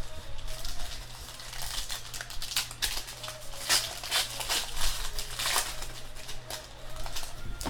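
Sports trading cards and their pack packaging being handled: a string of irregular rustles, crinkles and card-on-card slides.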